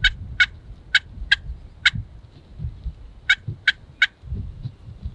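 Turkey call sounding a series of short, sharp hen yelps to pull in a tom: five notes about half a second apart, a pause of about a second and a half, then three more.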